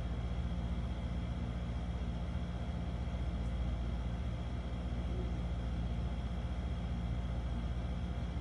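Steady low hum of a running motor or appliance, even and unchanging, with a faint higher whine above it.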